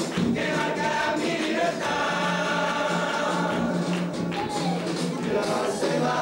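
A carnival comparsa, a chorus of men, singing together with musical accompaniment.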